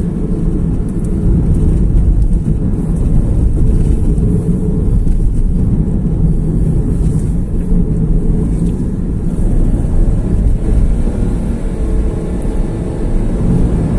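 Inside the cabin of a 2023 Perodua Axia with its 1.0-litre three-cylinder engine and D-CVT gearbox while driving: a steady low rumble of engine and road noise.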